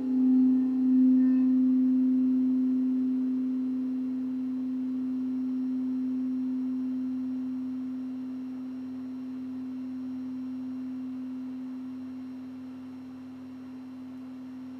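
A singing bowl's low tone ringing on and slowly dying away. It wavers in loudness for the first couple of seconds, and its higher overtones fade out early, leaving one steady hum.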